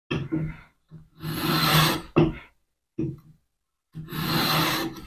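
Lie-Nielsen No. 5 jack plane taking two strokes along the edge of a maple board, each a hissing shearing sound about a second long, with short knocks as the plane is set down and brought back between strokes. The plane is cutting a continuous thin shaving with the grain reversed.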